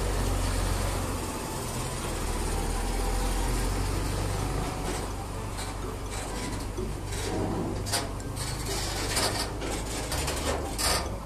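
A large container truck's diesel engine running with a steady low rumble, heavier over the first half. From about five seconds in, scattered short knocks and clicks come over it.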